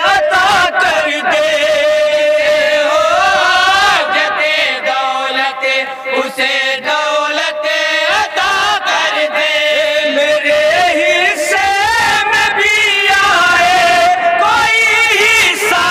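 A chorus of men singing a naat, an Urdu devotional poem in praise of the Prophet, unaccompanied, with long held notes and ornamented melodic runs.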